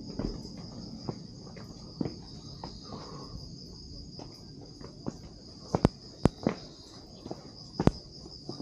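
Night insects trilling in a steady, high-pitched chorus, over footsteps and a few sharp clicks, the loudest about six and eight seconds in.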